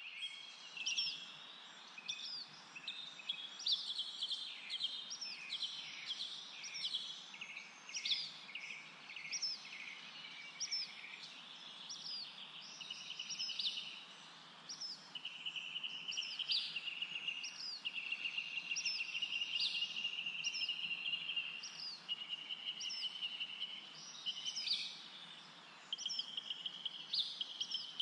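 Small birds chirping and singing, with sharp high notes repeating about once a second. From about 15 seconds in, a steady high buzzing trill runs beneath them.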